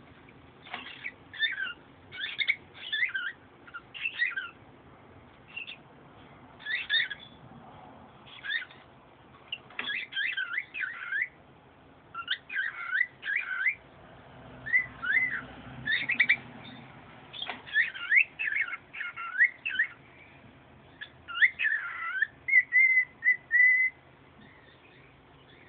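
Pet bird singing: a string of short whistled phrases with quick up-and-down glides, ending in a rapid run of short even notes near the end.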